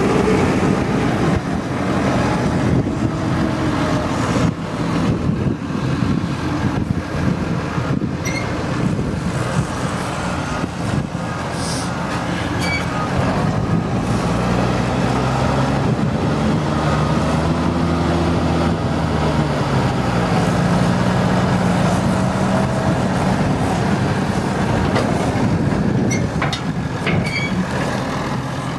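New Holland T6090 tractor's six-cylinder diesel engine running while pulling a silage trailer, its revs rising and falling through the middle stretch.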